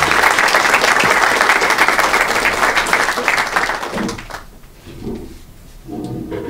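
Audience applauding, a dense patter of many hands that dies away about four seconds in.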